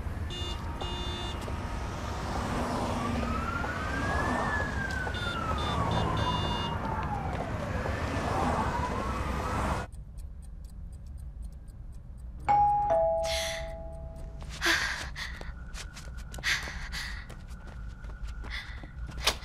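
A siren wails with a slow rise and fall in pitch, then cuts off suddenly about ten seconds in. A two-note ding-dong doorbell then rings, followed by a few footsteps and sharp clicks as a door is unlocked and opened.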